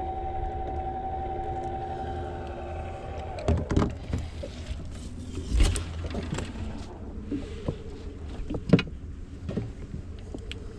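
A steady whining tone that stops about three seconds in, then a hooked snook splashing and thrashing at the surface, with several sharp slaps and knocks.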